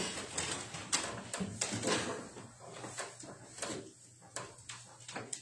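Rustling and light knocking of handling noise, pages of a Bible being leafed through, in a run of short, sharp clicks and rustles that thin out towards the end.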